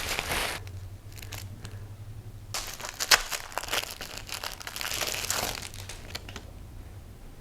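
Packaging crinkling and tearing as the drawing diaries are unwrapped by hand. There is a short burst at the start, a quieter pause, and then a longer run of crinkles with sharp snaps.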